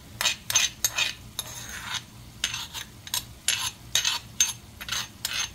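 Metal spoon scraping against a stone molcajete, knocking a tomato and cilantro mixture out into a skillet. It comes as repeated short scrapes, two or three a second.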